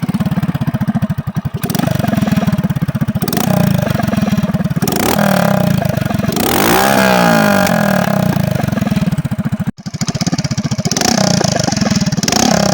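A 1999 Hero Honda Splendor's single-cylinder four-stroke engine running and being revved several times, with one long rev rising and falling about halfway through. It drops out for an instant near the end, then carries on with more hiss.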